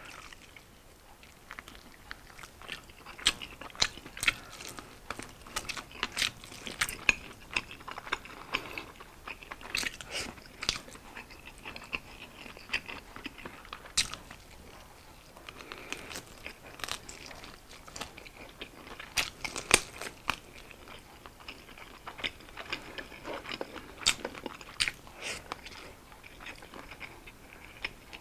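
A person biting into and chewing crispy fried chicken wings up close: irregular sharp crunches a second or so apart, with quieter chewing between them.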